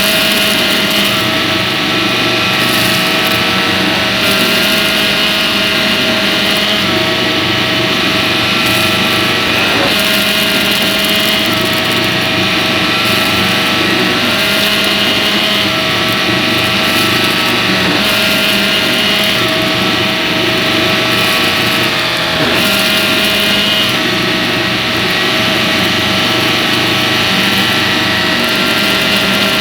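Shark vacuum cleaner running steadily with a high motor whine, its pitch shifting slightly a few times, as around ten seconds in and again past twenty seconds.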